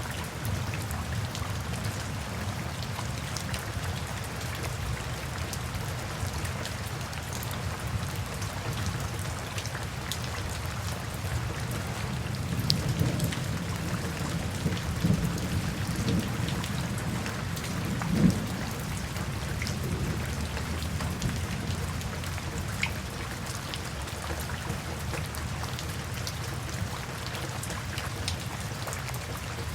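Steady rain falling, with drops pattering on a surface. A low rumble of thunder swells up in the middle and peaks a little past halfway before fading back under the rain.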